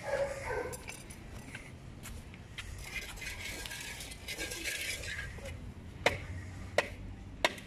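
Three sharp metallic clinks about two-thirds of a second apart near the end: a bottle knocking against an aluminium cooking pot. Before them there is a soft hiss lasting a couple of seconds.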